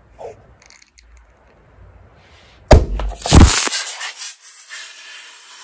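Cork of a bottle of sparkling wine popping out with a loud crack about two and a half seconds in, then a second loud bang a moment later, followed by a hiss that fades away.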